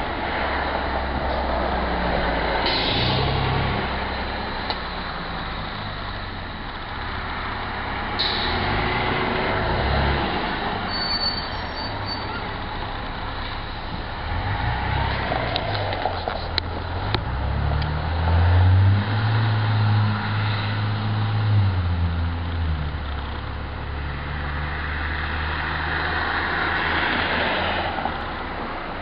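Street traffic: engines of passing vehicles, with a heavy vehicle's engine swelling louder and fading away partway through, and a few short hisses.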